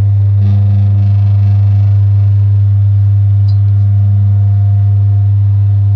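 Loud, steady electrical hum at a low pitch. It switches on and off abruptly.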